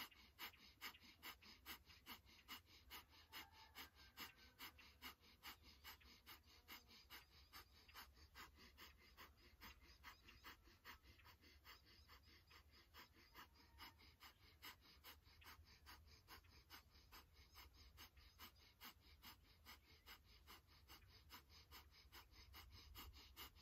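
Faint, fast rhythmic breathing: short, sharp breaths at about two to three a second, kept up steadily as a breathwork exercise.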